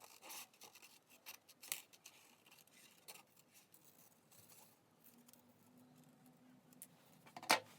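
Scissors cutting paper: a series of faint, irregular snips, with one louder click near the end.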